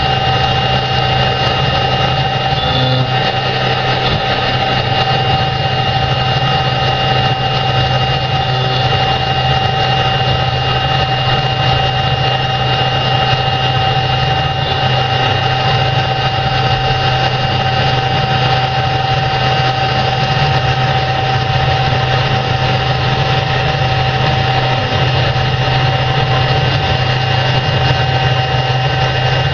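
JNEM-800 CNC stone engraving machine running steadily, a constant motor hum with a high spindle whine over it.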